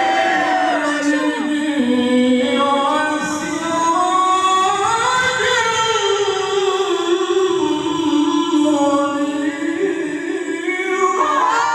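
A qari's solo voice in melodic Qur'an recitation (tilawah): one long phrase of sustained notes that glide up and down with ornaments, the phrase ending near the end.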